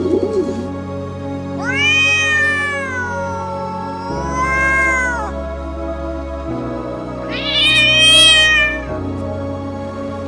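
Domestic cat meowing twice: a long drawn-out meow of nearly four seconds that rises, dips and rises again before falling away, then a shorter meow about two seconds later. Soft background music plays underneath.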